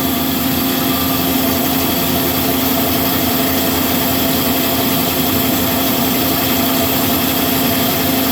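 Marvel MV525 vertical mitering bandsaw running steadily, a constant machine hum with a steady low tone.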